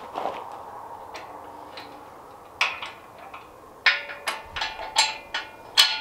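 Steel pallet fork tines and fork frame clanking as the tines are moved and set by hand: sharp metal clanks, each with a brief ring. There is one clank partway through, then a quick run of them in the last two seconds.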